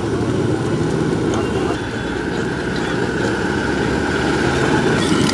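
Steady low rumble of street traffic and running vehicle engines.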